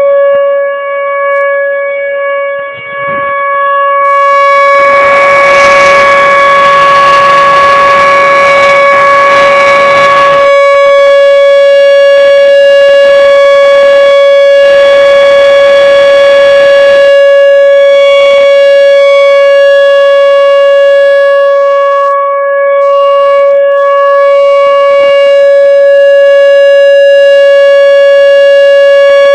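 Solar-powered Whelen Vortex R-4 electronic outdoor warning siren sounding its steady Alert tone: one loud, unwavering pitch with strong overtones. A rushing noise rides over it for several seconds about five seconds in, and again briefly later.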